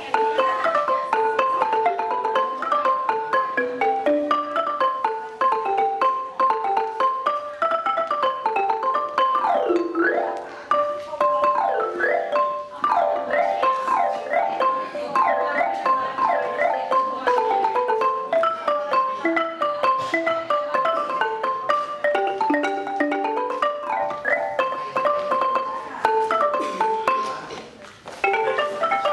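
Ranat ek, the Thai boat-shaped wooden xylophone, played with padded mallets in quick, even runs of notes. The melody keeps returning to a few repeated pitches. The playing stops briefly near the end, then starts again.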